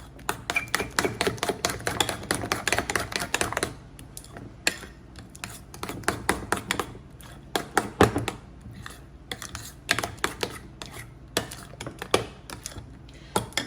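A utensil stirring a thick cheese-and-egg mixture in a bowl, knocking and scraping against the bowl in rapid clicks. The clicking is dense for the first three seconds or so, then comes in sparser bunches.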